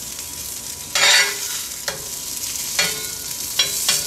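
Arepas sizzling in melted butter in a cast iron pan, with a metal spatula scraping and knocking against the pan as they are turned. The loudest scrape comes about a second in, with a few short knocks near the end.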